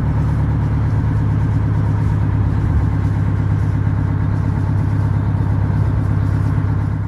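An engine running steadily, a low even drone that holds at one pitch.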